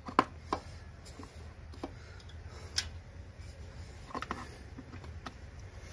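Scattered light clicks and knocks, a handful at uneven intervals, as a motorcycle stereo amplifier and its wiring are handled and pushed into a tight tool compartment.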